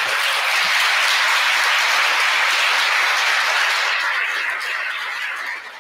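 Audience applauding, steady at first and then dying away over the last couple of seconds.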